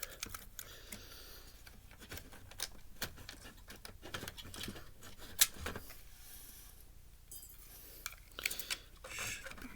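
Small clicks and rattles of plastic and metal parts being handled and pried loose while a Blu-ray player is taken apart, with one sharper click about five and a half seconds in.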